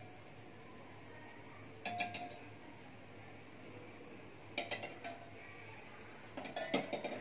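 Raw eggs being set by hand into a metal pot of water, knocking against the pot and each other: three short clusters of clinks with a slight ring.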